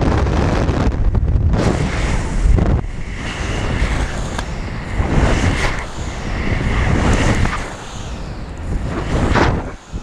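Heavy wind buffeting on the microphone of a pilot-mounted camera during acro paragliding turns, a dense rumble that surges and eases in waves and drops away sharply near the end.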